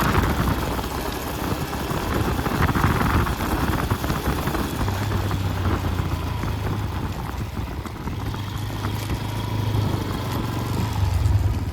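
Bajaj Pulsar N160 single-cylinder motorcycle riding over a rough road, heard close to its rear drive chain, a new Rolon brass chain. The engine runs with a steady low hum under the running noise of the chain and tyres, with only faint light clicks.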